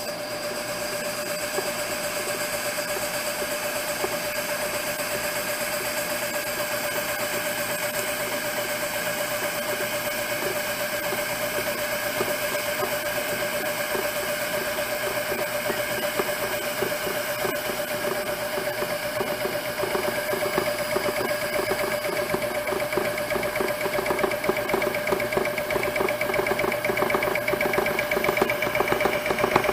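Antique refrigeration compressor running steadily as it pumps pressure up on the high side. Its hum grows slowly louder, and a rapid pulsing comes in about two-thirds of the way through as it works against the rising pressure.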